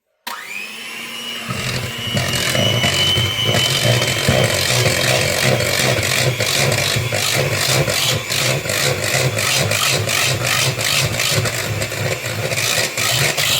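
Electric mixer whisking pancake batter of milk, flour and eggs. Its motor starts just after the beginning and rises to full speed over a second or two, with a steady high whine over a low hum. From about halfway a regular pulsing of two or three beats a second runs through it.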